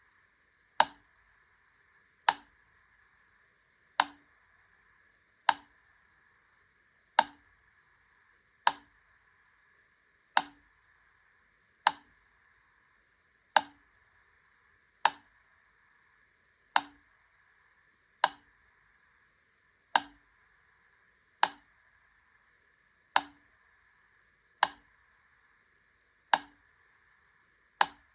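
Wittner Taktell Piccolo mechanical metronome ticking slowly, one sharp tick about every one and a half seconds, with the spacing alternating slightly between beats. A faint steady hiss sits underneath.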